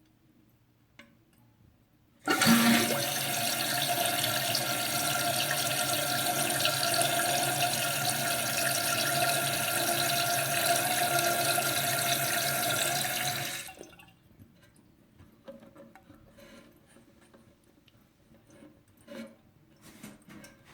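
Toilet flushing on its own: water rushes in suddenly about two seconds in, runs steadily for about eleven seconds, then stops abruptly, leaving faint clicks and knocks.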